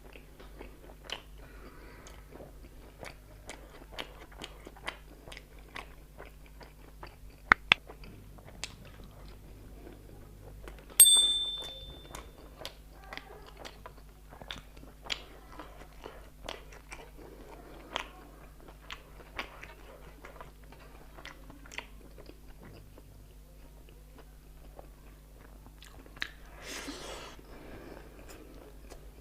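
Close-miked chewing and biting with wet mouth clicks, the sound of someone eating a meal of rice and fried chicken. About eleven seconds in, one sharp ringing clink is heard.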